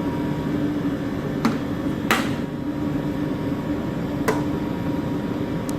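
Steady background hum with four short sharp clicks and knocks, the loudest about two seconds in: power plugs being pulled from the outlet and cables handled.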